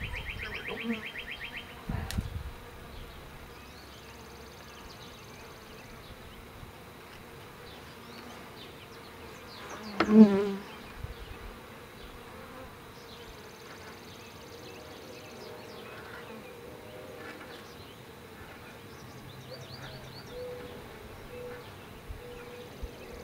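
Honeybees buzzing around an open Langstroth hive, with a louder buzz as a bee passes close about ten seconds in.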